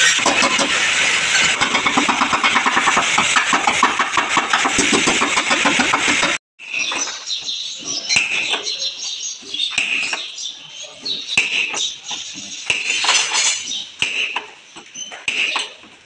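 A machine runs steadily with a fast rattle. It stops abruptly, and irregular taps and knocks follow, typical of hammering out a dent in a car's body panel.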